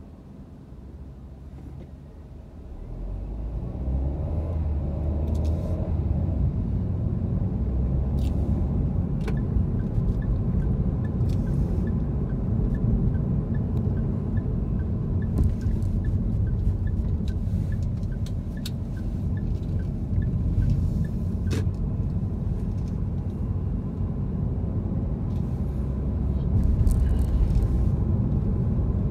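Car engine and road rumble heard from inside the cabin, quiet at first, then louder and steady as the car pulls away about three seconds in. A light, even ticking, about two ticks a second, runs for some ten seconds in the middle.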